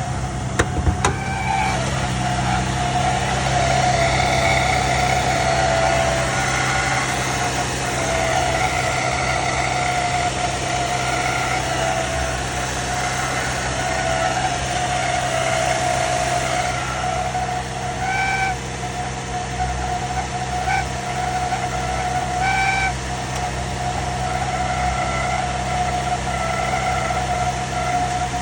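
Cadillac CTS running at idle, with a steady high-pitched whine over the engine note: the strange sound the owner wants explained. The whine swells briefly now and then, and there are a couple of sharp clicks about a second in.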